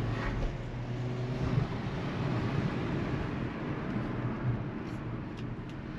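Hyundai HB20X with a 1.6 automatic running on the road, heard as a steady low engine and tyre rumble inside the cabin. There is no knocking from the front suspension, whose stabilizer links and bar bushings have just been replaced.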